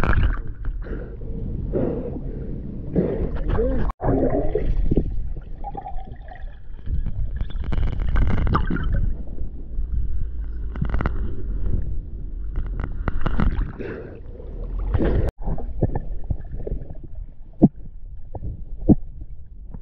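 Underwater sound of a scuba diver's exhaled air bubbling and gurgling in surges every few seconds, over low rumbling handling noise. Regular sharp clicks come in the last few seconds.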